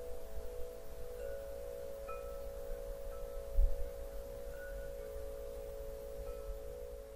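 Soft chime-like closing music: a few sustained low tones hold steady under scattered short, high bell-like notes, starting to fade near the end. A brief low thump comes about three and a half seconds in.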